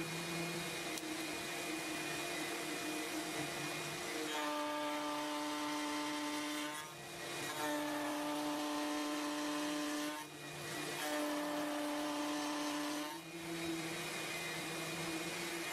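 Table-mounted router spinning a rail-and-stile coping bit and cutting the ends of hardwood door rails, a steady high-pitched whine whose overtones shift as the wood passes the bit. The whine dips briefly a few times.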